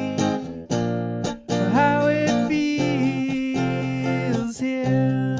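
Guitar playing an instrumental passage: picked and strummed chords ringing, with one note sliding up in pitch about two seconds in.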